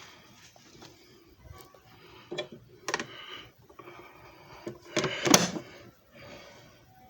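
Handling clicks and knocks from a small machine: a few single knocks, then a louder clatter about five seconds in.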